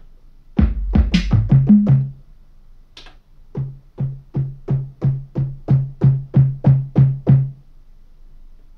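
Electronic drum and synth sounds played from an Akai MPK25 controller's pads and keys: a quick cluster of hits, then an even run of about a dozen low, pitched drum notes, about three a second, which stops near the end.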